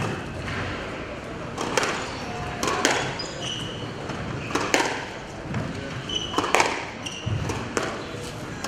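Squash rally: the ball cracking sharply off rackets and the walls at irregular intervals of about a second, with short high squeaks of shoes on the wooden court floor between the hits.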